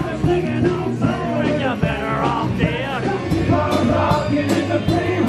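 A rock band playing, with singing and drum hits.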